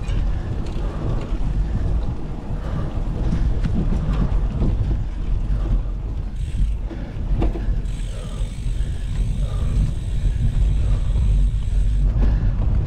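Gravel bike rattling and clattering over a rough dirt trail, with a steady low rumble of tyres and wind on the camera microphone. About eight seconds in, a steady high whine joins for about four seconds, then stops.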